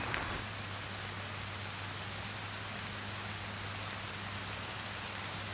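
Steady rain, an even patter of drops, with a faint low hum underneath.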